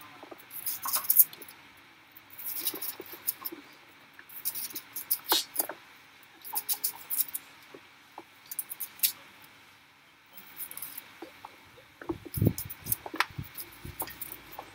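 Kitchen knife cutting a white onion held in the hand: short clusters of crisp cutting clicks and crackles every second or two. A dull low knock comes near the end.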